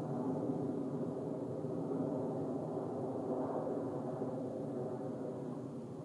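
Low steady engine drone, rising slightly about three and a half seconds in.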